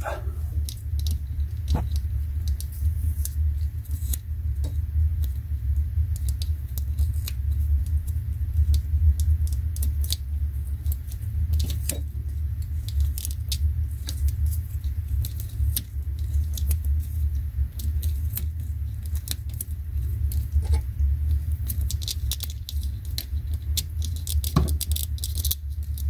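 Hands handling thin wires and electrical tape at a small plastic plug connector, making frequent small clicks and crinkles. A steady low rumble runs underneath.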